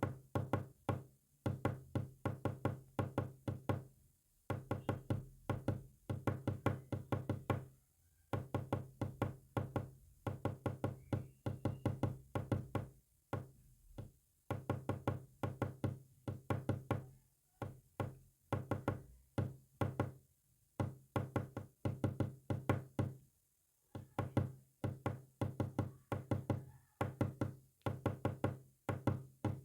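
Rapid knocks in short runs separated by brief pauses, tapped out as Morse code, each knock with a short low ring.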